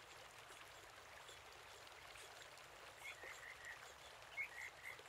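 Near silence: a faint background hiss, with a few faint, short high chirps about three seconds in and again near the end.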